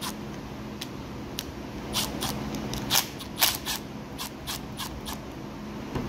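Sharp, irregular clicks from a socket tool working out the two 9/32 screws on the bottom of a Briggs & Stratton lawn mower carburetor, over a steady low hum.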